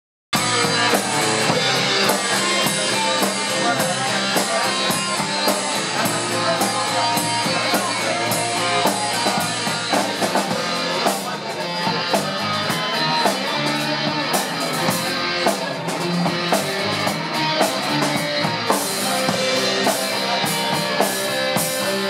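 Live rock band playing an instrumental passage on Stratocaster-style and Les Paul-style electric guitars over a Premier drum kit, with a steady cymbal beat. The drumming thins briefly about halfway through before the full band comes back in.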